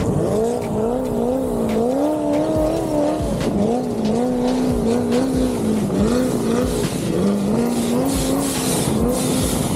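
A car held at high revs with its pitch swinging up and down, its tires squealing as they spin, as in a burnout at a car show.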